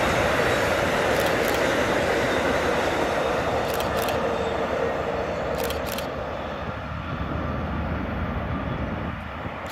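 Amtrak Superliner passenger cars running along the rails and fading steadily as the train moves away, with faint paired ticks every couple of seconds.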